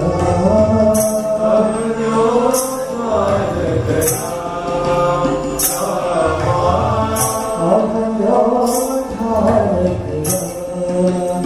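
Voices singing a Hindu devotional bhajan to Rama in a chanting style, with a short bright percussive strike about every second and a half.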